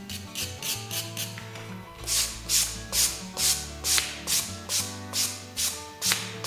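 Brushes on brick: quick, light wire-brush strokes, then from about two seconds in louder, regular swishes about twice a second as a bristle brush dusts the loosened red oxide pigment off the brick faces. Background music plays underneath.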